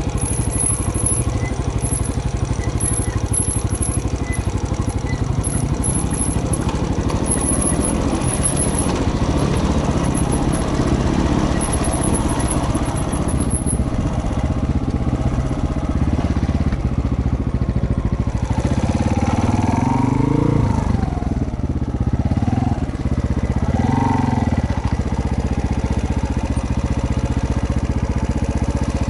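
Trail motorcycle engine running while riding over a leaf-covered forest trail, rising and falling in revs twice about two-thirds of the way through.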